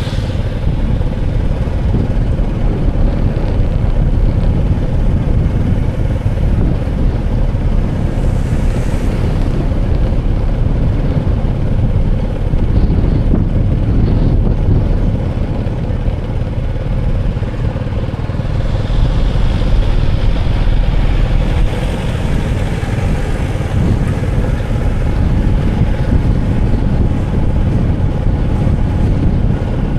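Steady, loud rumble of a running motor vehicle, with wind on the microphone, as heard riding along.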